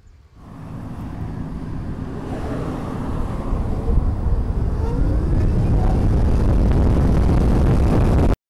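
Zero FX electric motorcycle accelerating hard, mostly wind buffeting on the microphone and road noise, growing louder as the speed builds, with a faint rising whine from the electric motor. The sound cuts off suddenly near the end.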